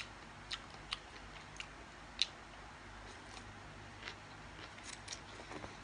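Close-up eating sounds: irregular sharp lip smacks and mouth clicks while someone chews a mouthful of rice-noodle salad. The clicks are loudest about two seconds in and come in a quick cluster near the end.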